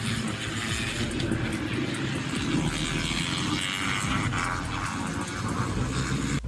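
Racing motorcycle engines running at high revs on the circuit, with the engine note rising about halfway through as bikes accelerate past.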